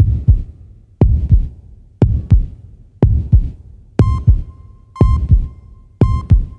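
Heartbeat sound effect: a double thump once a second. From about four seconds in, a high electronic beep sounds with each beat.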